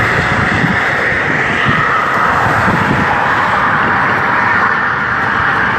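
Steady rush of car traffic on the causeway road, with an irregular low rumble of wind on the microphone.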